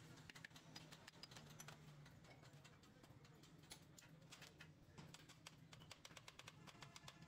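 Faint, irregular clicks and taps of small metal engine parts and hand tools being handled, over a low steady hum.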